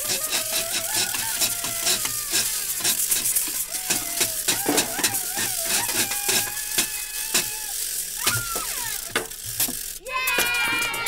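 Rapid, irregular snipping clicks made as foley for scissor blades cutting paper, over a wavering tone. About ten seconds in they give way to a fuller sound of several held tones.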